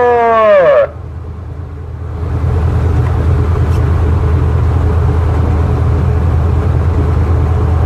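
Tuna purse seiner underway: a steady low engine rumble under the rush of wind and wake. In the first second a loud drawn-out call, falling in pitch, cuts off.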